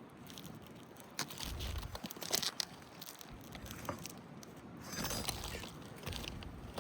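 Roof shingles being worked loose to get at the nails holding them: irregular scraping and crackling with scattered sharp clicks and knocks, and a couple of duller low thuds.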